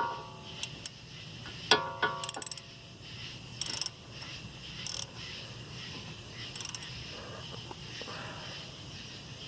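Hand tools working on a car's wheel hub bolts: two sharp metallic clinks that ring briefly, near the start and about two seconds in, then scattered light ratchet clicks and small metal rattles.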